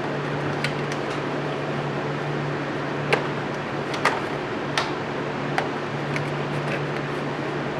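Short, sharp plastic clicks, about seven in all and spread unevenly, as the coil pack electrical connectors are pushed back on and snapped into place, over a steady low hum.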